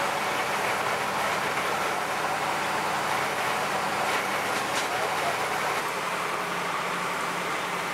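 Steady outdoor noise at a large fire: a constant rushing noise over the low, even hum of a running engine, with a few faint crackles about four to five seconds in.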